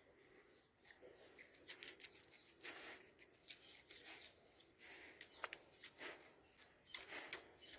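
Faint, irregular clicks and short breathy sounds from a Doberman moving about at close range.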